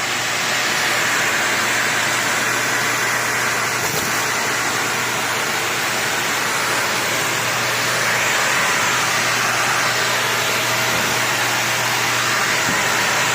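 Dyson Ball Multi Floor 2 upright vacuum cleaner running steadily, a low motor hum under a loud rushing of air as it draws suction through its hose.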